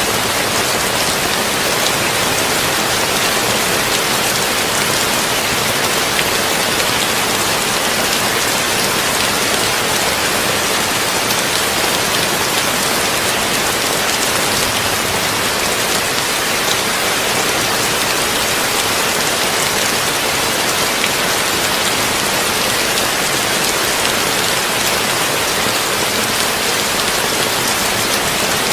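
Heavy rain falling on a tin roof, a dense, even hiss that keeps up steadily without let-up.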